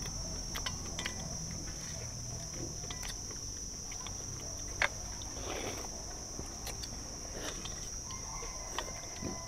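A steady high-pitched insect drone, with scattered clicks and taps of chopsticks and spoons against steel bowls, the sharpest about halfway through.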